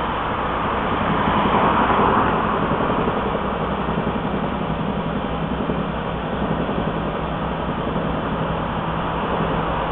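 Cars passing on a city street over a steady low engine hum, with one car passing close and louder about one to two seconds in.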